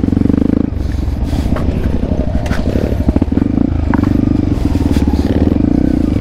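Off-road motorcycle engine running under load on a slippery trail, its note turning rough and uneven about a second in, with rattling, then steadier again after the middle.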